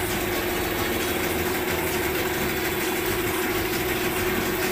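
Yamaha 15 HP outboard motor idling steadily, its pitch even with no revving.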